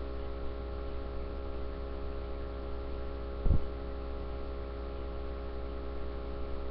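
Steady electrical mains hum picked up by a webcam microphone, with one short, soft bump about halfway through.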